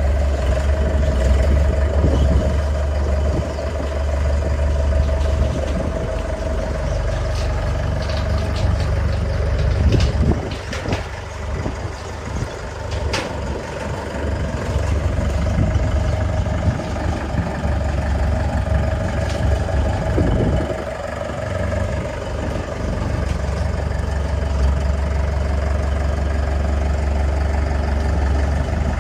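Engine of a tracked pile-driving machine running steadily: a low hum with a steady mid-pitched tone over it, and a few sharp knocks around the middle.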